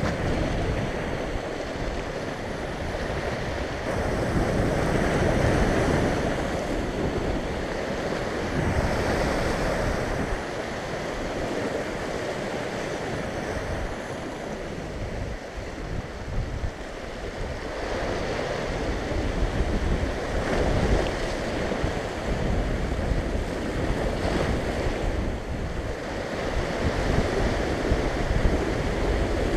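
Sea surf breaking and washing over shoreline rocks just below, swelling and ebbing as each wave comes in, with wind buffeting the microphone.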